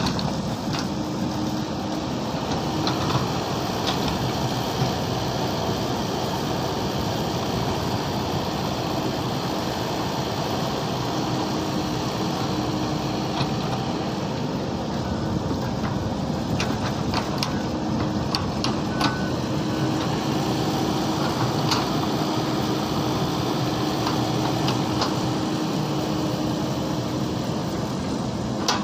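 Mini excavator running steadily, with scattered light clicks and knocks.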